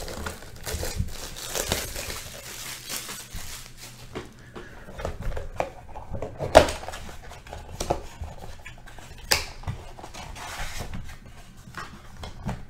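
Cellophane shrink wrap crinkling and tearing as it is stripped off a cardboard trading-card box, then the box's cardboard lid being pried open, with irregular crackles throughout and one sharp crack about six and a half seconds in.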